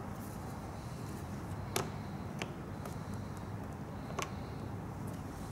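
A few sharp, separate metallic clicks of a small wrench and hex-head screws as a fuel switch is fastened to a plastic fuel tank, over a steady low hum.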